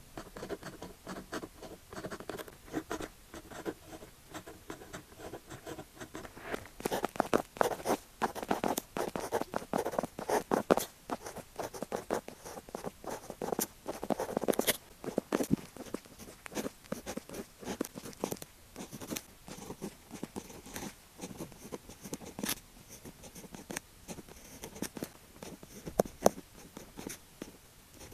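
Pen writing on paper: quick scratchy strokes, fast and close together as characters are written out. The strokes are light at first, heavier and busier for several seconds from about a third of the way in, then lighter again.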